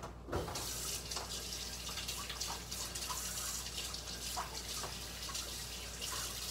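Kitchen sink faucet turned on about half a second in and running steadily into the sink, with a few light clinks of dishes being washed.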